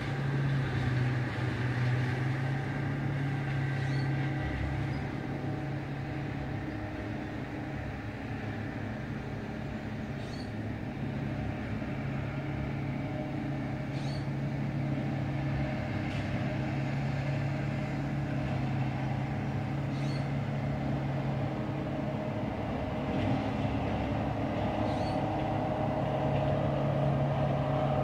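A steady, low engine hum with a constant pitch, growing slightly louder near the end, with faint short high chirps every few seconds.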